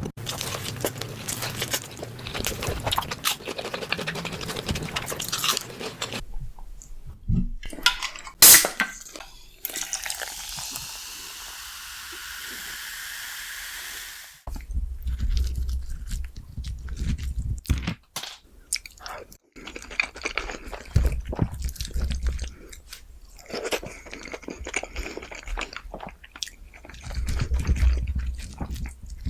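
Close-miked crunching bites and chewing of crispy sweet chili glazed fried chicken. Dense crunching at first, then a few sharp clicks and a few seconds of steady hiss about a third of the way in, then wetter chewing with low thumps.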